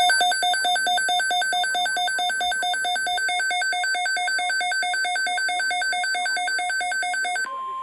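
Weather radio alert alarm: a loud electronic two-tone warble, rapidly alternating between a lower and a higher pitch, signalling an incoming emergency alert. About seven and a half seconds in it switches to a single steady tone, the NOAA Weather Radio 1050 Hz warning tone.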